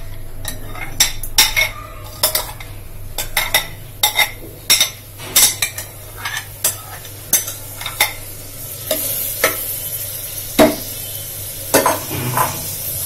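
A spoon stirring washed toor dal in a little hot oil in a pressure cooker, knocking and scraping against the pot about once or twice a second, over a faint sizzle that grows louder near the end.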